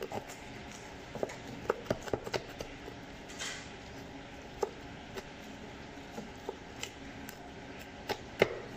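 Knife knocking and scraping on a plastic cutting board as a crispy deep-fried duck is cut and pulled apart: scattered sharp irregular clicks, bunched together in the second second, with a short scrape about three and a half seconds in.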